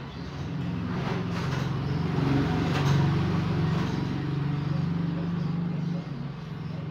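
Road traffic: a steady low engine hum, with a rushing noise that swells about a second in and fades a few seconds later, as of a vehicle going past.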